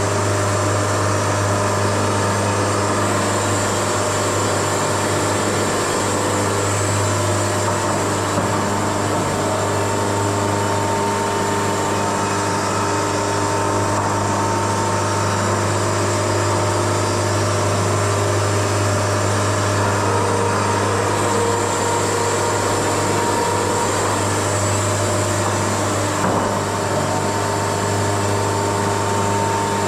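Wood-Mizer LT70 band sawmill running steadily at an even pitch, with a thin constant whine above the low hum of its power unit.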